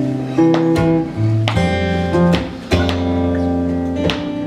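Acoustic guitar strumming chords over sustained low notes: the instrumental introduction of a song, before the vocals come in.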